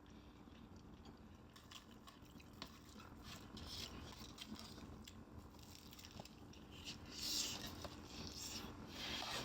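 A person biting and chewing fried chicken close to the microphone, with short crisp bites that grow louder after the first second or two, the loudest about seven seconds in.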